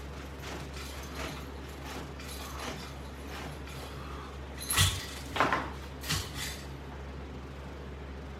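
Metal strap hardware on a resistance-band attachment bar clinking and knocking three or four times in quick succession about halfway through, over a steady low hum.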